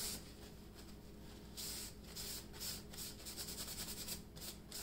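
Faint rubbing on a fine 600-grit Lansky honing stone as honing oil is worked into it, a few soft swishes and then a run of quick short strokes in the second half.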